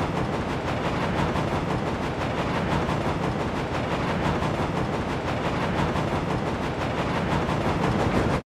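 Battery-powered TrackMaster toy engines running on plastic track: a steady whirring rattle of their small motors and wheels, which cuts off abruptly near the end.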